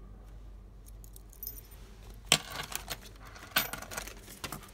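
Metal key blanks and keyrings clinking and jangling together on a tabletop as they are handled, in two bouts of jingling about halfway through and again a second later, each opening with a sharp clink.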